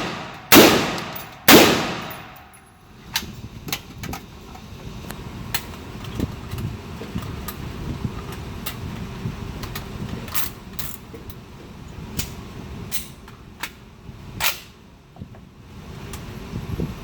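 Two suppressed rifle shots from a Tommybuilt T36C (G36C clone) fitted with a SilencerCo Saker 762, about a second apart near the start, each trailing off in echo. Then comes a long stretch of low rumble with scattered faint clicks and cracks, one sharper crack about 14 seconds in.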